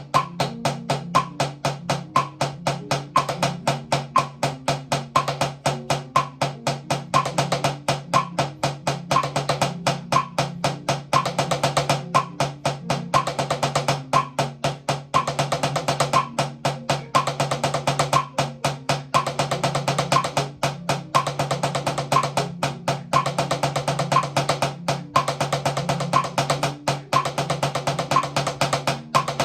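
Drum played in a fast, continuous stream of single strokes, hands alternating, over a backing track with a steady low tone and a regular high click keeping time.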